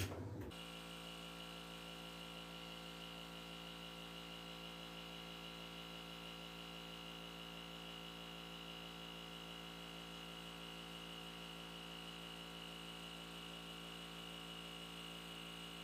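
Aircrete foam generator running steadily while it makes foam: an even machine hum with a high whine above it. The hum starts about half a second in and cuts off sharply at the end.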